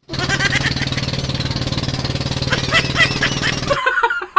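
Motorized bangka's engine running steadily with a fast pulsing beat. It cuts off suddenly near the end and is followed by a man's short bursts of laughter.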